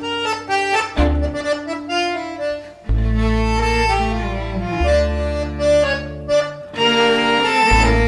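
Background instrumental music: sustained melody notes over a deep bass line, changing chord every second or two.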